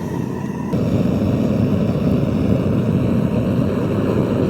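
Small propane forge burner running with a steady roar while a steel lawnmower blade heats inside it; the sound gets louder about a second in.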